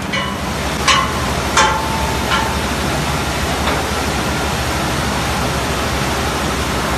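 Steady rushing noise of a mineral sand processing plant running: slurry and water flowing through the pipework and pumps. Three or four sharp clinks with a short ring stand out in the first four seconds.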